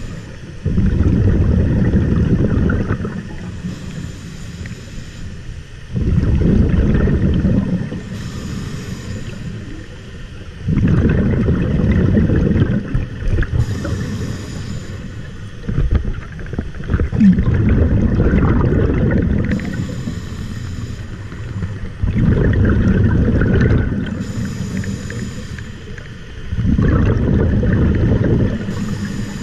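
Scuba diver breathing through a regulator underwater: a short hiss on each inhale, then a long rush of exhaled bubbles, repeating about every five seconds.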